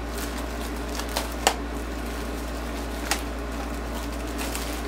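A few light clicks and a crinkling plastic bag as a soldering-iron holder is unpacked by hand, over a steady low hum.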